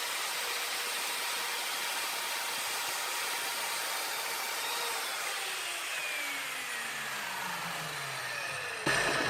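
Evolution R210CMS mitre saw's 1200 W motor running with a steady whine, its pitch falling from about halfway as the blade spins down, with a sharp knock near the end.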